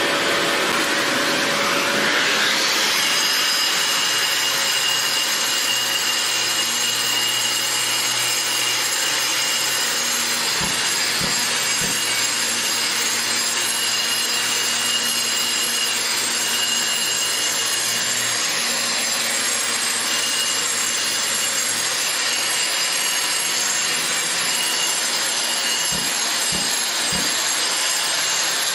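A handheld angle grinder with a dust-shroud vacuum hose grinds steadily across a concrete floor, taking the cured Bondo body filler in a hairline shrinkage crack down flush. A vacuum is running at the start, and the grinder's whine comes in about two seconds in. There are a few light knocks near the middle and again near the end.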